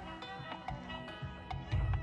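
Music with sustained melodic tones and light percussive taps; a heavy bass beat comes in near the end.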